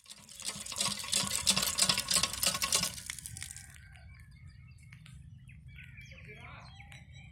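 A stream of rainwater pouring and splashing onto brick paving, which stops about three and a half seconds in; after it, birds call faintly.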